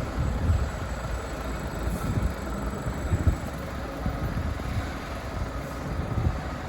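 Low, uneven rumble of a vehicle engine running at low revs, with no siren sounding.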